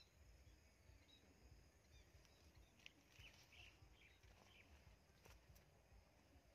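Near silence: a faint low rumble, with a few faint, short, high bird chirps about three seconds in.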